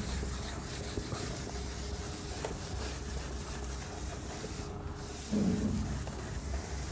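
Handheld whiteboard eraser rubbing across a whiteboard, a steady wiping hiss, with a short low hum a little over five seconds in.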